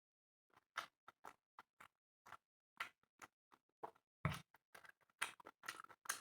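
Someone chewing chicken and rice close to the microphone: an irregular string of short wet clicks and smacks, with one louder, fuller one about four seconds in.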